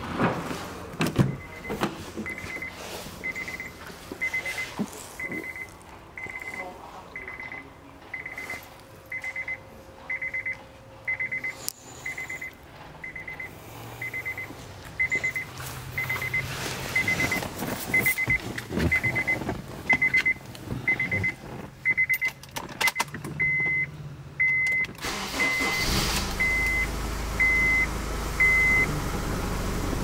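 Honda CR-V's warning chime beeping about once a second, a single high tone, with the driver's door open and some knocks of door and seat. About 25 seconds in, the engine starts and settles into a steady idle.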